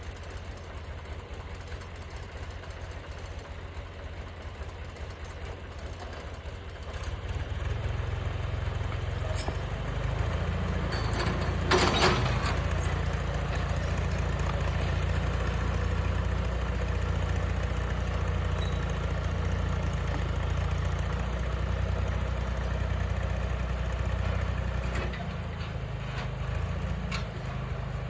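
A heavy machine's engine idling, then throttled up about seven seconds in and running harder, as it works to dig out a log. A sharp knock comes near twelve seconds, with a few lighter knocks around it, and the engine eases off again near the end.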